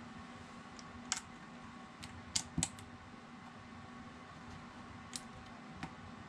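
Small plastic Lego bricks clicking and tapping as they are handled and pressed together: several short sharp clicks, bunched around two and a half seconds in, over a steady background hum.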